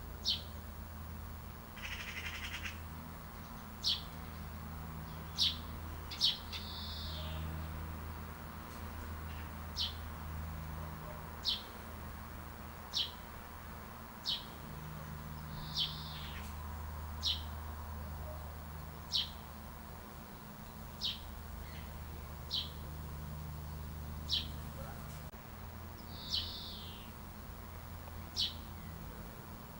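A bird repeating a short, high, falling chirp about every one and a half seconds, with a few harsher, buzzier notes in between, over a steady low rumble.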